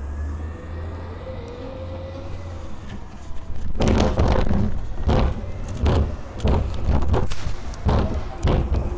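Low, steady hum of a distant garbage truck's engine. From about four seconds in, loud, irregular rustling noise drowns it out.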